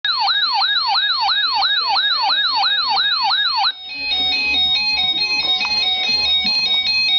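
Electronic siren yelp opening an emergency weather alert, its pitch sweeping up and down about three times a second. It cuts off abruptly a little before halfway and gives way to an electronic tune of stepping tones.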